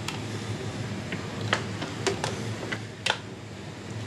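Scattered sharp metal clicks and ticks, the loudest about three seconds in, as a hand tool works the brake pedal return spring off a motorcycle's footpeg side plate. A low steady hum runs underneath.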